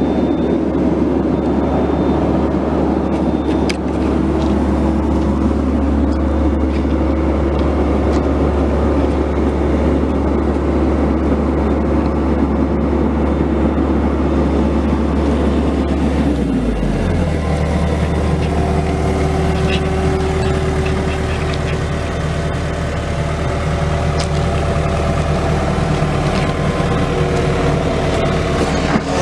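Diesel engine of a Komatsu PC138US-8 excavator running steadily, dropping to a lower engine speed about sixteen seconds in.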